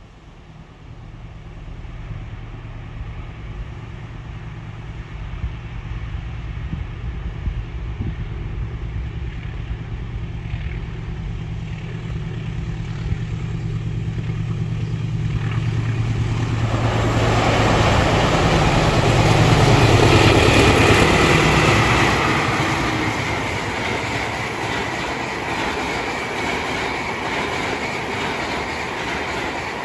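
Passenger train hauled by two diesel-electric locomotives in double traction approaching and passing through: a low engine drone builds over the first half, then the rushing noise of wheels and carriages takes over, loudest about two-thirds in and easing toward the end.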